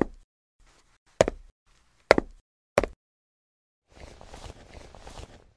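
Footsteps: four sharp heel strikes on a hard walkway, one every second or so, then about a second and a half of cloth rustling from a coat sleeve.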